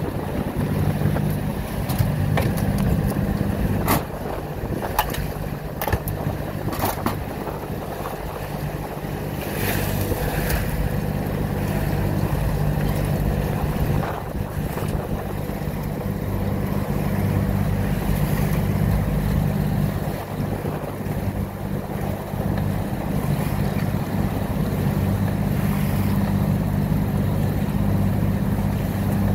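A boat's motor running steadily under way, with water rushing past the hull and wind on the microphone. A handful of sharp knocks and clatters come in the first third.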